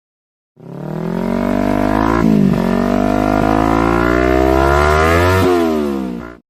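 Motorcycle engine accelerating hard, its pitch climbing and dropping twice on upshifts, about two seconds in and again near the end. It starts abruptly and cuts off just before the end.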